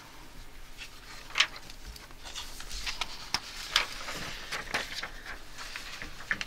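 Sheets of paper being handled and turned over at a desk: a series of short, crisp rustles and clicks, the sharpest about one and a half seconds in and again around three to five seconds.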